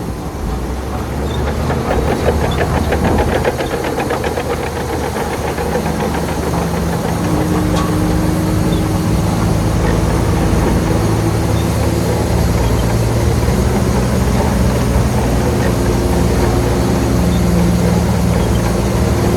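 Diesel engine of heavy construction machinery running steadily, with a fast rattling clatter over the first few seconds.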